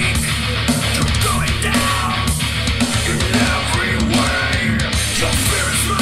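Heavy rock track with guitar, loud and unbroken, played as a listening demo through Klipsch The Fives powered bookshelf speakers.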